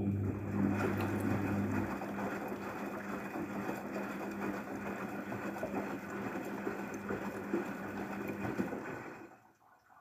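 Daewoo DWD-FT1013 front-loading washing machine during a drum-clean cycle: the motor turns the drum, a steady whirring hum with water sloshing inside, then stops about nine seconds in.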